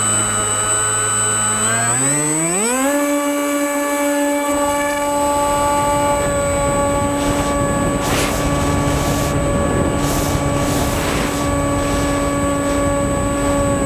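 Onboard sound of a Skysurfer RC foam plane's electric motor and propeller in flight: a steady whine that rises sharply in pitch about two to three seconds in as the throttle is opened, then holds at the higher pitch. Rushing air noise builds behind it.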